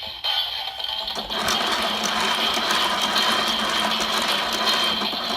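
DX Drill Crusher toy's motorised drill blade spinning, a steady mechanical whir that starts about a second in.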